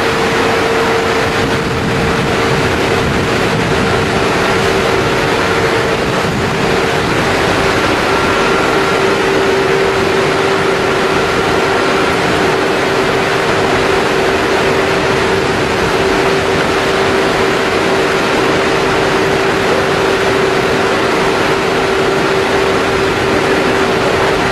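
Biomass steam boiler plant running: a steady, loud machinery roar with a constant humming tone that drops slightly in pitch about six seconds in.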